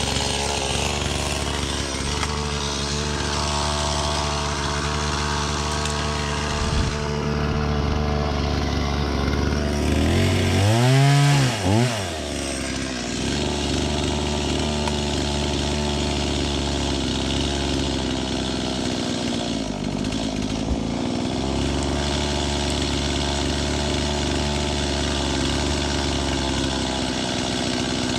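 Two-stroke chainsaw engine running steadily, revved up and back down once about eleven seconds in.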